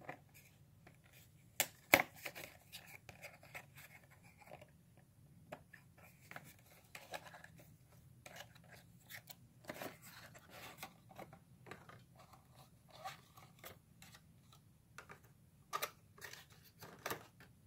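A small cardboard-and-plastic diecast car box being opened and handled: faint, scattered clicks, scrapes and crinkles, with a sharper click about two seconds in.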